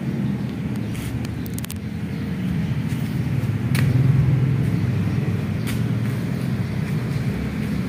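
Low, steady rumble of passing motor traffic, swelling about four seconds in, with a few light clicks about a second in.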